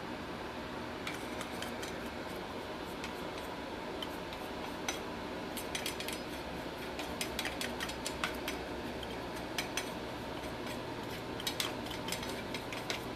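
Light clinks and taps of tableware, scattered and irregular, over a steady low hum.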